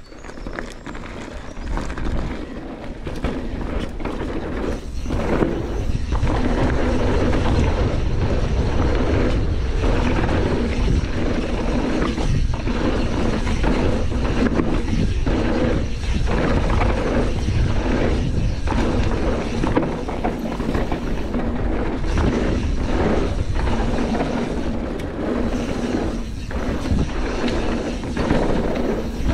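Wind rushing over the microphone of a chest-mounted action camera, with the tyres rolling over a dirt trail and the Canyon Torque mountain bike's chain and frame rattling. It builds over the first few seconds as the bike gathers speed downhill, then stays loud with brief dips from the bumps.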